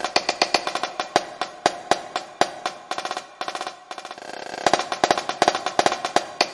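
A marching snare drum plays alone through a cadence solo. A few rim clicks come near the start, then rapid accented sixteenth-note patterns. It drops soft about three to four seconds in, then builds back to loud accented strokes.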